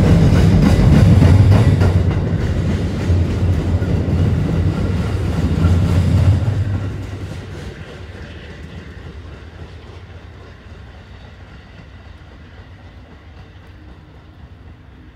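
Shore Line East push-pull passenger train's coaches rumbling past, wheels clicking over the rail joints. About six and a half seconds in, the sound drops off sharply as the cab car at the rear passes, then keeps fading as the train moves away.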